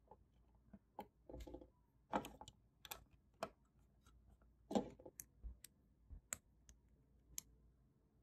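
Plastic Lego bricks clicking and tapping as small pieces are handled and pressed onto a model car: irregular sharp clicks, the loudest about two seconds in and again near five seconds.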